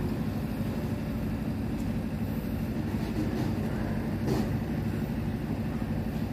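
Steady low drone of a running engine or machine, unchanging throughout, with one short sharp knock about four seconds in.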